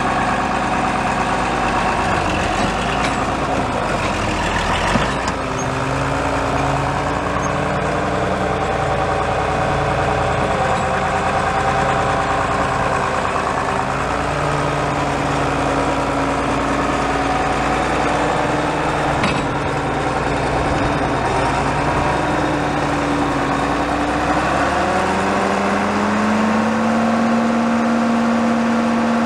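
A John Deere 4230 tractor's six-cylinder diesel engine idling steadily, its pitch wandering a little. About 25 seconds in, the engine speed rises and holds at a higher, steady pitch.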